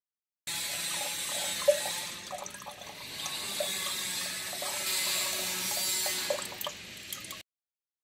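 A stream of water splashing into water in a glass carafe: a steady pouring hiss with short bubbly plops and drips. It starts abruptly about half a second in and cuts off suddenly near the end.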